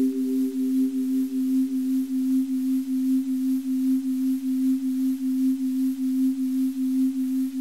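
Electronic drone: a steady, pure low tone with a light wavering about three times a second, and a softer higher tone above it that fades away within the first few seconds, over a faint hiss.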